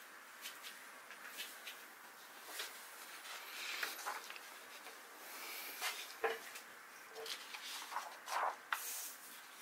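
A printed paper-model sheet being picked up, shifted and laid on a wooden desk: irregular paper rustling with scattered light taps, loudest a little past the middle and near the end.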